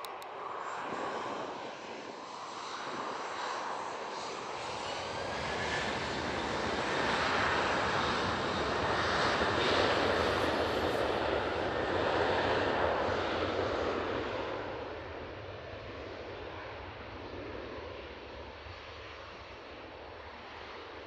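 Airbus A330-900neo's Rolls-Royce Trent 7000 turbofans at takeoff power: a jet roar that swells to its loudest about ten seconds in as the airliner passes, then fades away.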